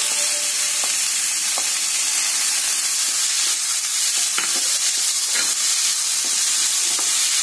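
Chopped tomatoes sizzling in hot oil with browned onions in a deep frying pan, stirred with a spatula that knocks and scrapes against the pan a few times.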